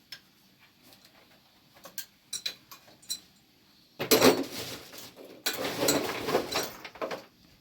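Plumbing tools and parts being handled: a few light clicks and taps, then two louder, longer scraping noises of about a second each.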